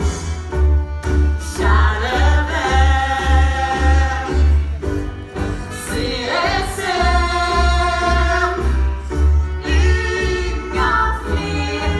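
A song with held sung notes over a steady bass beat, about two beats a second.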